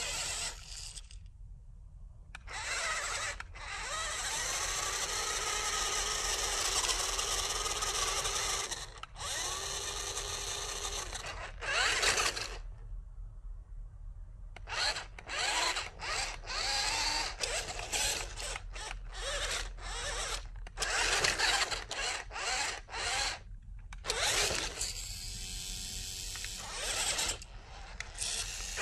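Small electric motor and gearbox of a toy RC rock crawler whining in stop-start bursts as it is driven over dirt. There is one long run of several seconds early in the clip, then a string of short throttle blips.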